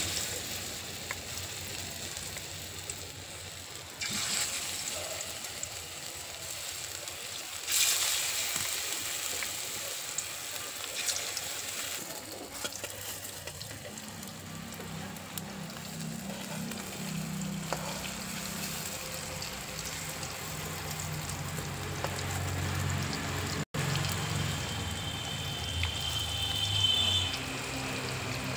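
Bottle-gourd fritters in gram-flour batter sizzling as they deep-fry in hot oil in a kadai. The sizzle grows louder twice, about 4 and 8 seconds in.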